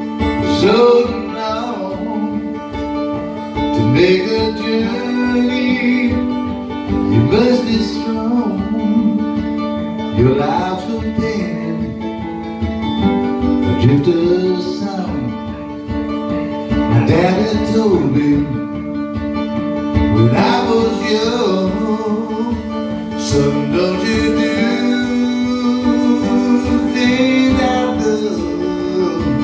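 A man singing a country-folk song with his own acoustic guitar accompaniment, the guitar strummed and picked under sung phrases that rise and fall every few seconds.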